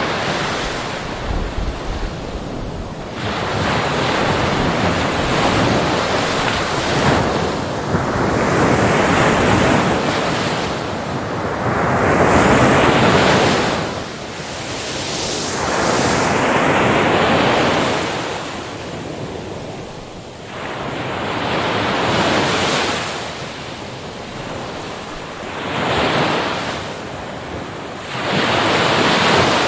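Ocean waves breaking on a beach, surf washing in and out in repeated swells every few seconds, with some wind noise on the microphone.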